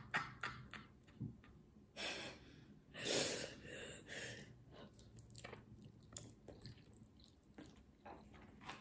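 Chewing and slurping of spicy noodles, with a few short noisy bursts and faint clicks.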